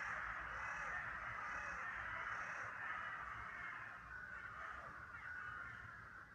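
A huge flock of crows cawing all at once, hundreds of overlapping calls blending into a continuous din. It thins and grows quieter over the second half, and single caws stand out near the end.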